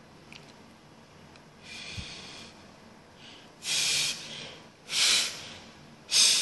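A man breathing hard close to the microphone. A faint breath comes about two seconds in, then three loud, sharp breaths a little over a second apart.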